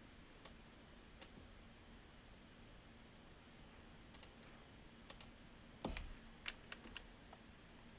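Faint, scattered clicks of computer keyboard keys, a few at a time and loudest about six seconds in, over a faint steady low hum.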